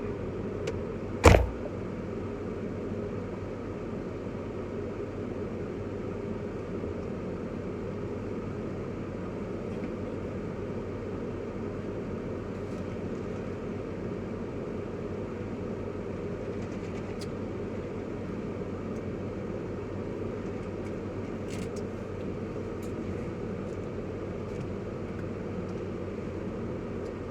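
Steady low hum of a car's interior, the engine or fan running, with one sharp knock about a second in.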